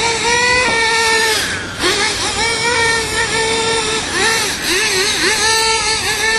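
Radio-controlled car drifting, its motor whining steadily with the pitch wavering up and down as the throttle changes. A few short hissy bursts come through.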